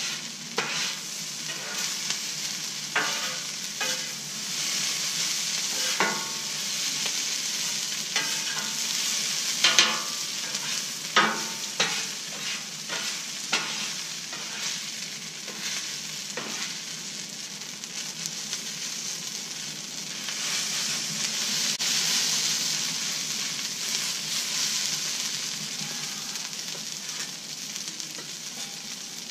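Fried rice with chicken and vegetables sizzling on a Blackstone flat-top griddle's hot steel plate, with metal spatulas scraping and clacking against the plate as the rice is turned and chopped. The clacks come mostly in the first half, and the sizzle swells later on.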